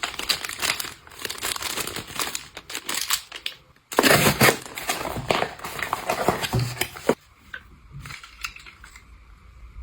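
Packaging crinkling and rustling as it is handled. There is a brief pause just before the middle, then a louder stretch of crinkling that stops about two thirds of the way through, leaving only a few light clicks.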